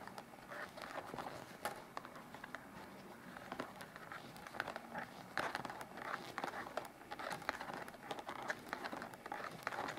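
Thin knitting needles clicking softly and irregularly as a row of knit stitches is worked.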